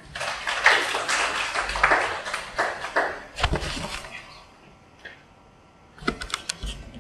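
Audience applauding: dense clapping that dies away after about four seconds, followed by a few scattered sharp knocks near the end.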